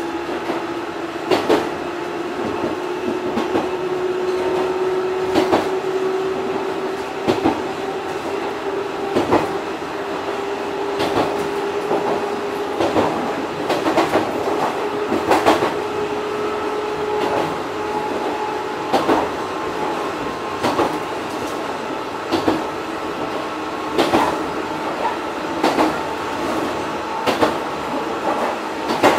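Onboard running sound of a Fukui Railway 200 series electric car at speed: a steady rumble with the wheels clicking over rail joints about every two seconds. A whine rises slowly in pitch over the first half and then fades.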